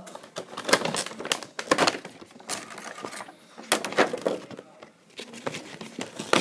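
Cardboard box and plastic packaging rustling and crinkling in irregular crackles and scrapes as the contents are pulled out, with a couple of quieter pauses.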